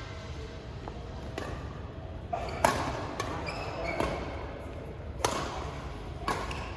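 Badminton rackets striking a shuttlecock in a rally: sharp hits roughly once a second, over a steady low hall hum.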